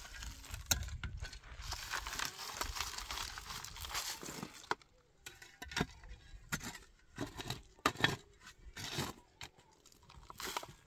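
Rustling and crinkling, dense for the first four seconds or so, then dropping away to a string of separate clicks and knocks.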